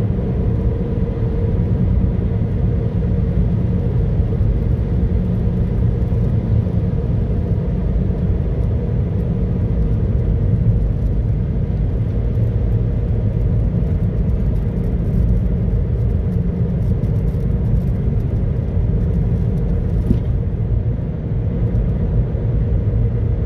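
Car driving at a steady speed, heard from inside the cabin: a constant low rumble of road and engine noise.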